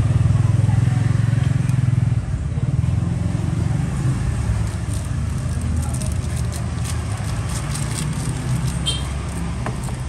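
Low steady rumble of a motor vehicle engine, loudest in the first two seconds and slowly easing off, with faint light clicks and ticks in the second half.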